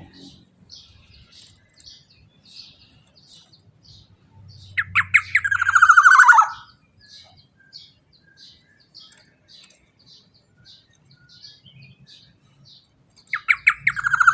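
Black-naped oriole (kepodang emas) giving two loud, harsh bursts of calls, each a rapid run of falling notes, one about five seconds in and one near the end. Between them a faint high chirp repeats about twice a second.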